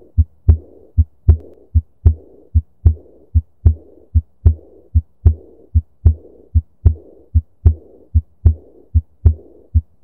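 Recorded heart sounds through a stethoscope: a steady lub-dub rhythm of S1 and S2 at about 75 beats a minute, with a soft decrescendo murmur following each S2, a diastolic murmur.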